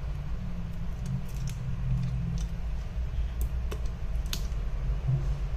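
Light, sharp clicks and taps, about six in all and the strongest about four seconds in, as fingers press the iPhone 11 Pro's display flex connectors onto the board and handle the screen, over a steady low background rumble.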